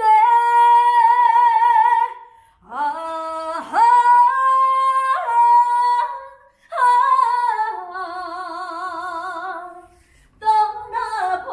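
A female trot singer singing unaccompanied in long held notes with strong vibrato, in three phrases with short breaths between them.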